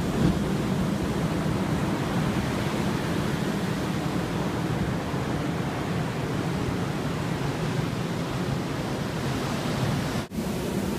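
Steady wash of ocean surf breaking on a sandy beach, an even noise with no distinct events. A brief dropout cuts the sound for a moment near the end.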